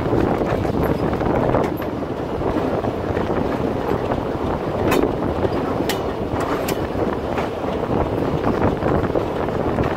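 Alco RS-3 diesel locomotive under way, heard from inside its cab: a steady rumble of the V-12 diesel engine and the wheels on the rails, with wind on the microphone. A few sharp clicks come about halfway through.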